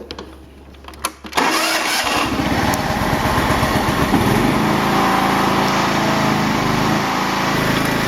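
A couple of clicks, then a lawn tractor's Kawasaki 14 hp engine starts about a second and a half in and runs steadily.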